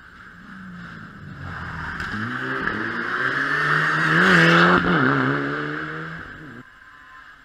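Rally car engine coming up to a hairpin, its revs rising and wavering as it turns through the bend, with a sharp pop about five seconds in, then fading as the car pulls away.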